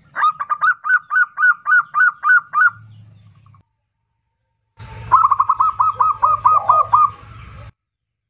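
Zebra dove (perkutut) cooing loudly in two runs of quick repeated coos, about four a second. The second run starts about five seconds in over a low hum.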